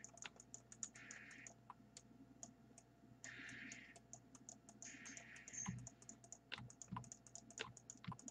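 Faint, rapid clicking of a computer keyboard and mouse, several clicks a second, with a few brief hissy patches in between.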